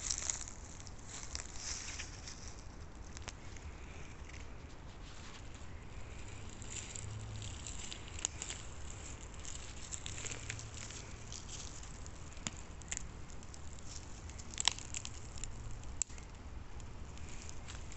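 Footsteps crunching and crackling through dry leaf litter and twigs on a forest floor, irregular, with a few sharper clicks, the loudest about 15 seconds in.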